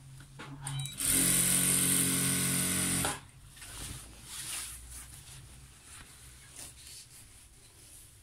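Jack industrial single-needle sewing machine stitching a folded curtain hem. It runs steadily at speed for about two seconds and then stops suddenly. Afterwards the fabric rustles faintly as it is smoothed by hand.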